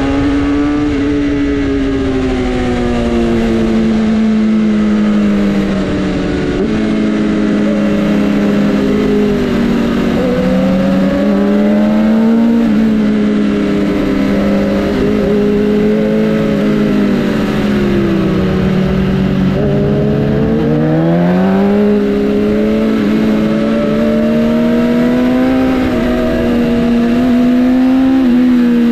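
Sportbike engine running under way, its note rising and falling smoothly with the throttle, dipping to its lowest about two-thirds of the way through before climbing again.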